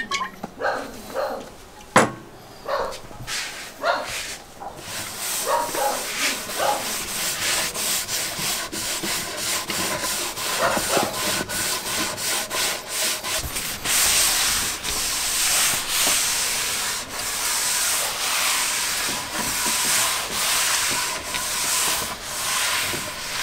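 A cloth rubbing olive oil into a solid oak countertop, with repeated wiping strokes that swell and fade and grow louder past the middle. There is a sharp knock about two seconds in.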